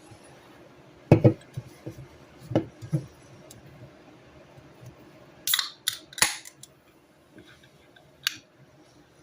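Eating a salad: a few sudden knocks and sharp crunchy scrapes of a fork in the bowl and of bites, with a quick cluster of them about halfway through.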